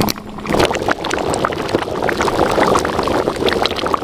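Thick curry bubbling hard in a wok, a dense, uneven run of pops and blips.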